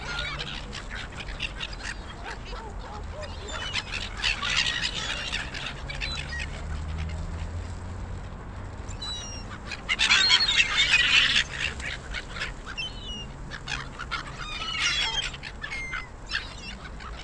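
A flock of gulls calling and squabbling as they are fed, with two loud bursts of crowded calling about four and ten seconds in.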